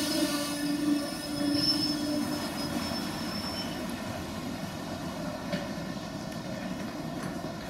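An electric train's steady whine fades out over the first two or three seconds, leaving a steady rumbling noise of the station.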